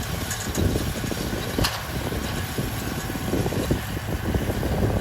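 Farm tractor engine running steadily, with a low, uneven rumble. A single sharp click comes about a second and a half in.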